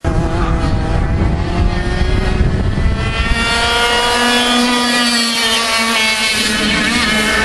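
A Margay racing kart's 100 cc two-stroke engine running hard at high revs as the kart laps, a high-pitched buzz whose pitch rises and falls. A low rumble sits under it for the first three seconds.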